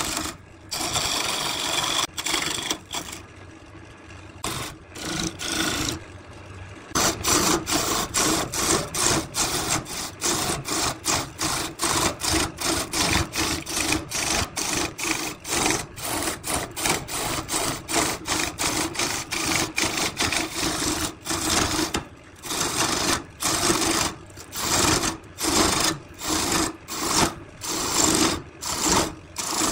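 Wood lathe running with a steady hum while a turning tool cuts the spinning wooden vase blank, scraping and ticking in quick repeated strokes. The cutting eases off for a few seconds near the start, then resumes.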